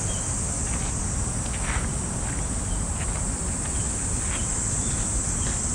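Cicadas buzzing in a steady, high-pitched chorus, over a low steady rumble.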